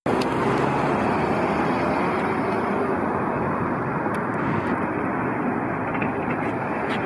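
Steady road traffic noise: cars and trucks passing on a busy multi-lane street.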